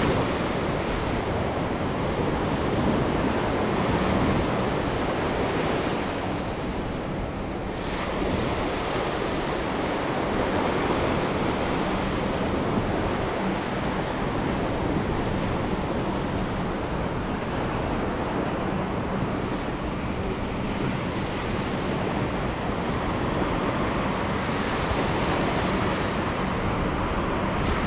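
Small ocean waves breaking and washing up a sandy beach, a steady rush of surf.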